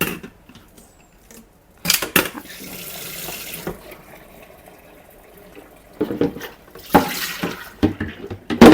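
Water running from a tap into a sink for about two seconds, starting just after a couple of knocks, then hard items knocking and clattering in the sink near the end.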